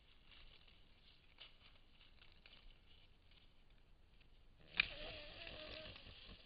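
Faint rustling and light ticks, then about five seconds in a sharp click followed by a Sitka black-tailed deer's low, wavering vocalization lasting about a second and a half, picked up by a trail camera's microphone.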